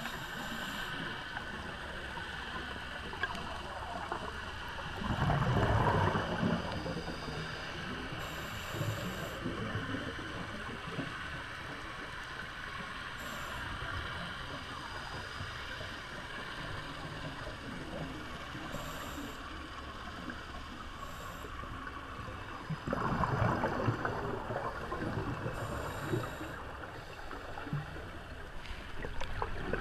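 Muffled underwater ambience picked up through a camera housing, broken twice by the rumbling gurgle of scuba regulator exhaust bubbles: about five seconds in and again from about 23 seconds in.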